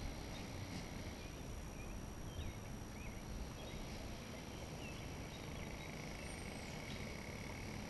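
Outdoor river ambience: a steady low rumble under scattered short bird chirps, and a steady high-pitched trill that starts about two-thirds of the way in.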